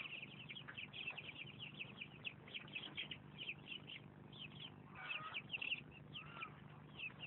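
Faint chirping of birds: a run of many short, quick chirps, with a couple of lower calls about five and six seconds in, over a steady low hum.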